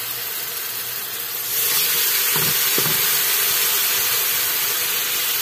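Onion and spice base sizzling in hot oil in an aluminium pot. The sizzle grows louder about a second and a half in as raw chicken pieces go into the pot, with a couple of soft knocks soon after.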